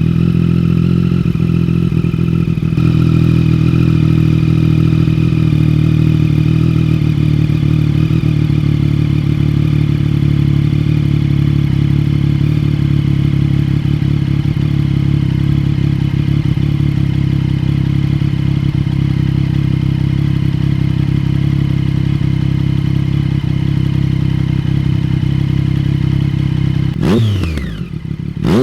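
2013 Triumph Daytona 675's inline three-cylinder engine through a TaylorMade aftermarket exhaust, idling steadily, then blipped near the end, the revs rising sharply and falling back to idle.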